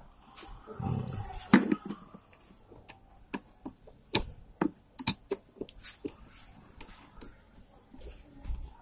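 Screwdriver turning the bolt on a motorcycle battery's negative terminal to fix a charger cable's ring terminal: irregular light metal clicks and ticks, with a short low rumble of handling noise about a second in.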